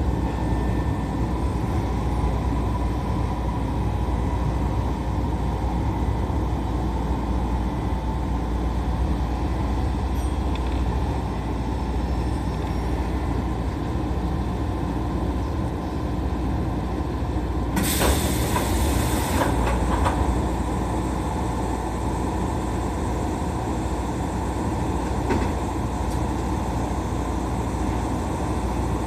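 Electric commuter train on the Keisei Chihara Line running along the track, heard from just behind the driver's cab: a steady low rumble of wheels and motors. About two-thirds of the way through comes a hiss lasting about a second and a half.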